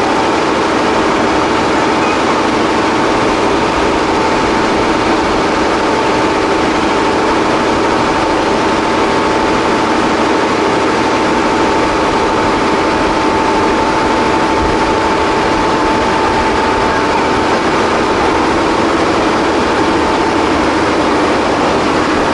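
Passenger train running: a steady rumble with a steady whining hum over it.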